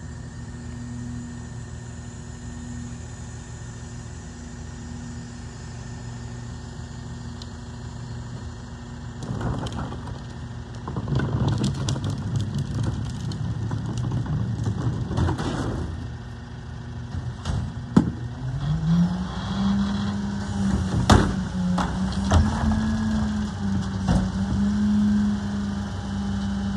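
Rear-loader garbage truck's diesel engine running, louder from about a third of the way in as the truck comes up close. About two-thirds through, the engine speeds up and holds a higher pitch while the cart is dumped by the loader, with a few sharp metal clanks from the cart and loader.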